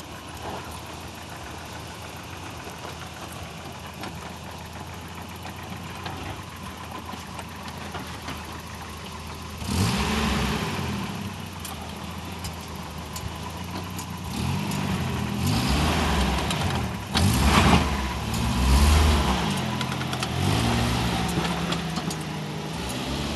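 Toyota 4Runner's engine running low and steady, then from about ten seconds in revving hard, its pitch rising and falling again and again under off-road load, loudest a little past the middle.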